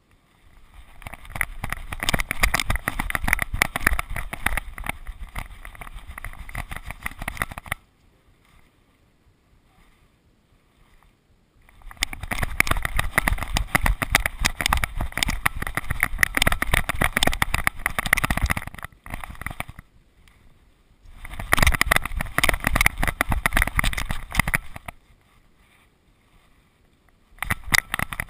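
Buffeting and rapid knocking of a GoPro camera strapped to a Border Terrier's back as the dog runs, in four stretches of several seconds with quiet gaps where the dog slows or stops.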